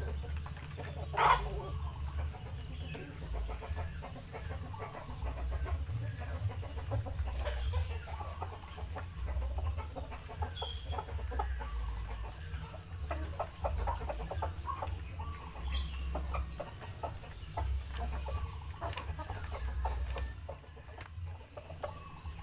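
A flock of young roosters clucking and calling as they feed, with many small pecking ticks as they pick at dry feed of pellets and rice on the ground. One louder, sharper sound about a second in.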